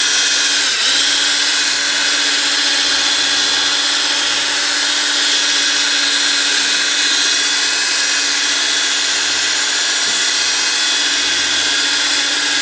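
Electric drill running steadily, spinning a foam buffing pad with liquid polish against a faded plastic headlight lens to polish it clear. The motor's pitch dips briefly just under a second in.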